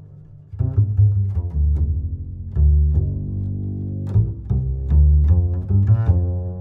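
Background music with a deep bass line and plucked string notes.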